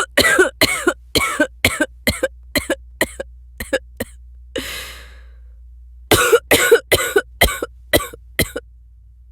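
A woman coughing, acted. There is a long run of short, hacking coughs about three a second that grow weaker. Then comes a noisy in-breath about halfway through, and a second run of coughs.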